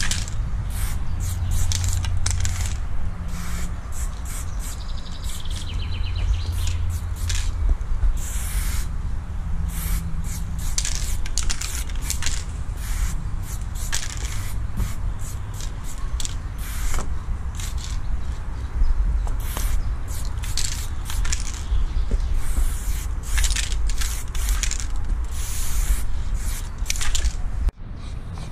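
Aerosol spray paint can hissing in many short bursts and a few longer ones as paint is sprayed onto a wall, over a steady low rumble. The sound breaks off briefly near the end.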